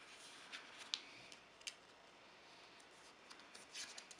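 Faint rustling and crinkling of a paper sticky note being folded and creased by hand, a few brief rustles a second or so apart.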